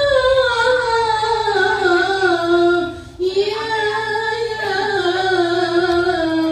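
A high voice singing long, wavering, drawn-out phrases without accompaniment, with a short breath about three seconds in.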